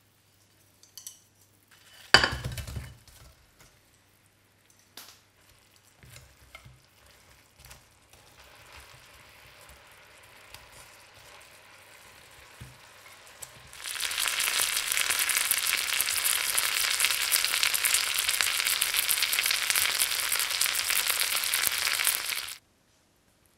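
Fried chicken pieces sizzling in a pan of bubbling garlic sauce as they are turned and coated. The sizzle is faint at first, jumps to loud about two-thirds of the way through, and cuts off abruptly near the end. About two seconds in there is one loud, sharp clatter.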